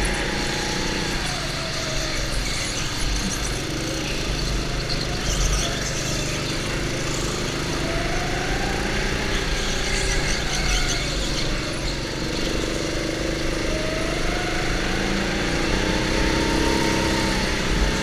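Go-kart motor heard from the driver's seat, its pitch repeatedly dropping as the kart slows into corners and rising again as it accelerates out.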